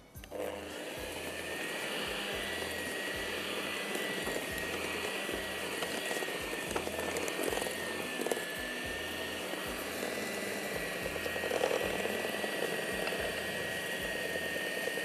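Electric mixer switched on and running steadily, beating cake batter as flour is added. It has a constant high whine.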